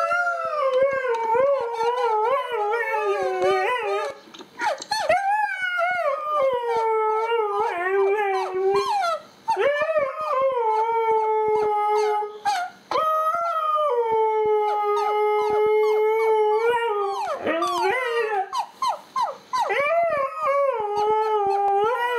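Siberian husky howling in a run of about five long, drawn-out calls, each sliding up in pitch and then falling away, with a few short yelps between calls later on.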